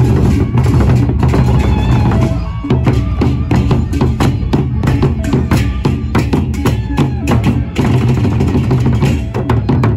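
Gendang beleq ensemble: large double-headed Sasak barrel drums beaten with sticks in a fast, dense, interlocking rhythm over a deep, steady boom. The playing briefly thins about two and a half seconds in, then carries on.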